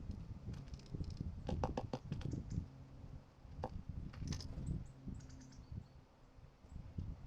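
Small birds at a feeder: irregular beak and foot taps and clicks on the feeder, a little cluster of quick taps about a second and a half in. A faint low steady hum lies underneath.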